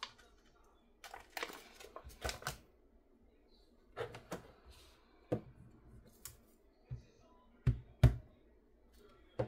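Crinkling of a clear plastic stamp sheet as a silicone stamp is peeled off and handled. This is followed by a few scattered taps, then two sharp thuds near the end as an ink pad is pressed down onto the stamp on the paper and desk.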